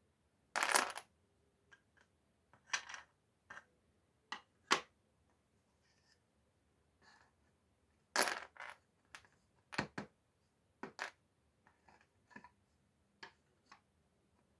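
Small plywood puzzle pieces clattering onto a table, with plywood puzzle boards knocking and tapping as they are handled. Two short rattling spills, about a second in and about eight seconds in, stand out among a dozen or so lighter clicks and knocks.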